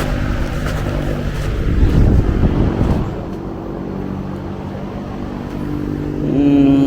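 A steady motor hum, with a louder stretch of rustling, handling noise about two seconds in and a short rising tone near the end.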